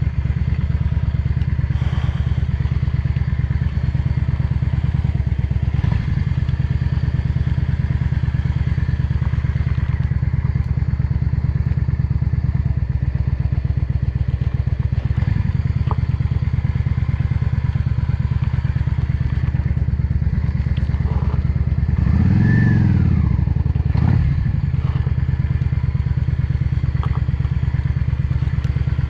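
Yamaha XVS 650 Drag Star Classic's air-cooled V-twin running steadily at low revs. About two-thirds of the way through it revs up briefly and drops back.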